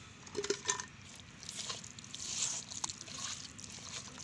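A bare hand squelching and kneading raw mutton pieces into a wet ground onion-and-garlic paste in a clay pot, a soft wet smacking and squishing with small clicks.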